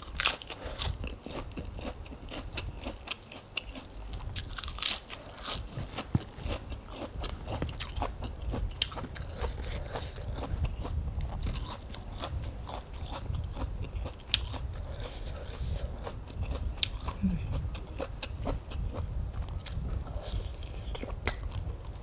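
Close-miked eating: bites into crisp fresh lettuce and steady chewing, with many small crunches and wet mouth clicks throughout, and a short hum of the eater about two-thirds of the way through.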